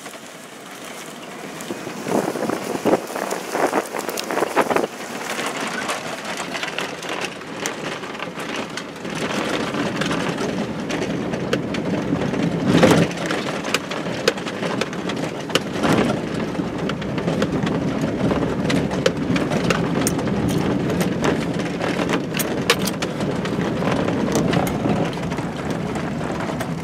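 Pickup truck driving over a rough grass field, heard from inside the cab: a steady rumble of engine and tyres with many rattles and knocks as it bounces over the ground, the loudest jolt about 13 seconds in.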